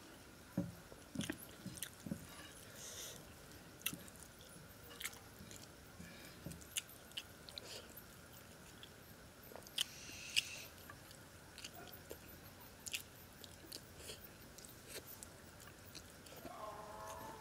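Close-up eating by hand: chewing, and fingers pressing and gathering rice on a clay plate, with scattered faint clicks and taps.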